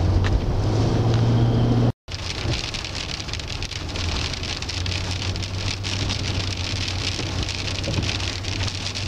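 Rain hitting a car's windshield, heard from inside the moving car as a steady hiss with scattered ticks over a low engine and road hum. The first two seconds hold only the car's cabin hum, which cuts off briefly before the rain begins.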